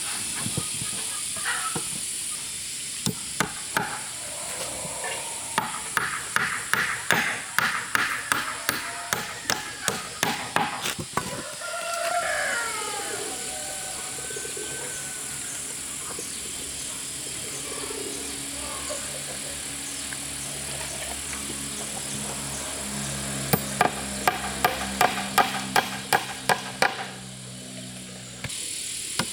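Two runs of quick, sharp knocks, about three a second, with a rooster crowing once about twelve seconds in and a steady high buzz of insects behind.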